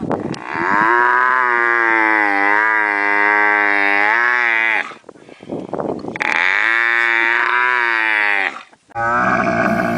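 Camel calling: two long, wavering calls, the first about four seconds and the second about two and a half, with a short break between. Near the end a different recording of another call begins.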